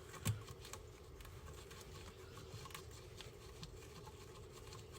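Faint, scattered light clicks and taps, one a little louder about a third of a second in, over a steady low hum.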